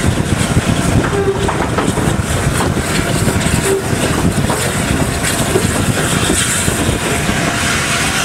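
BR Standard Class 8 4-6-2 No. 71000 'Duke of Gloucester', a three-cylinder steam locomotive, running as heard from its footplate: a loud, steady rumble of engine and wheels, with two short tonal squeaks about a second and nearly four seconds in.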